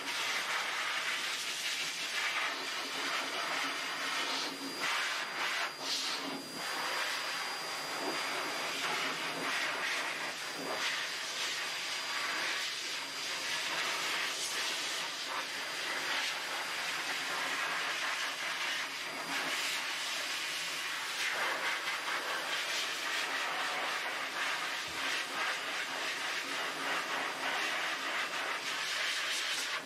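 High-velocity pet dryer blowing air through its hose onto a wet dog's coat: a steady hiss with a thin high whine.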